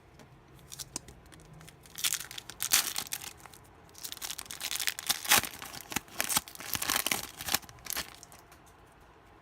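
A foil trading-card pack wrapper being torn open and crinkled, in quick crackling bursts about two seconds in and again from about four to eight seconds in.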